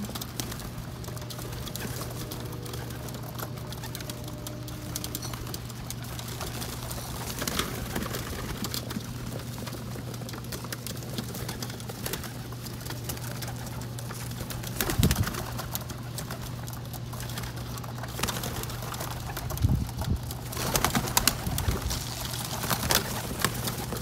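A flock of feral pigeons cooing and flapping their wings as they crowd in to feed, with louder flurries of wingbeats about fifteen seconds in and again near the end. A steady low hum runs underneath.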